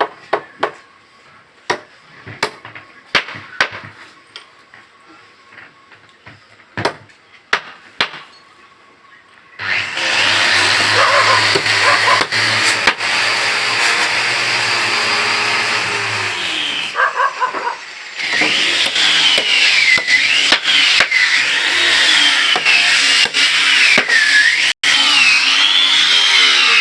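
Scattered sharp knocks on wood, then a woodworking power tool starts about ten seconds in and runs loudly with a low motor hum. It stops briefly about seven seconds later, then runs again with a high whine that wavers up and down, as when cutting into wood.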